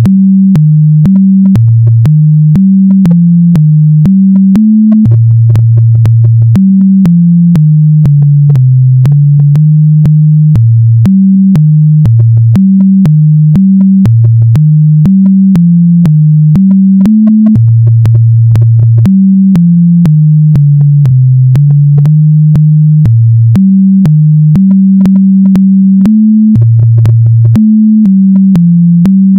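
Synthesizer music: a low melody of plain tones stepping up and down in a repeating phrase, over a steady ticking beat of about two ticks a second.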